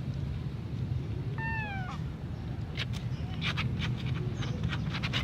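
A cat meows once, a short call that falls in pitch, followed a second later by a run of sharp clicks and scratches.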